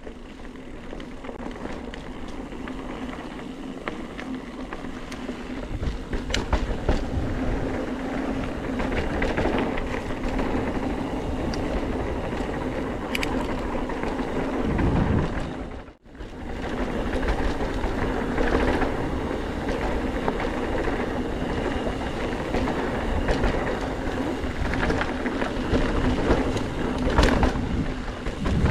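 Mountain bike rolling along a dirt trail: continuous tyre rumble and chatter with occasional sharp clicks and rattles from the bike, under a steady low hum. The sound dips out for a moment about halfway through.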